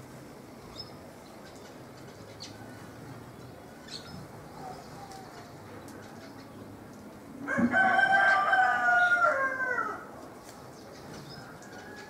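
A rooster crowing once, a single long call of about two and a half seconds that drops in pitch at the end, beginning about halfway through. Faint chirps from small birds come before and after it.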